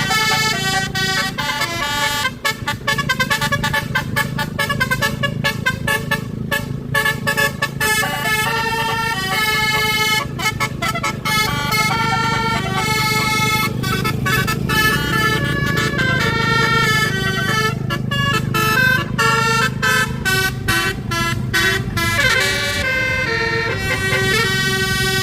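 A bus's basuri telolet horn, a multi-note musical air horn, playing a long melody of stepped notes, with short breaks between phrases. Underneath is the low steady hum of the bus's running engine.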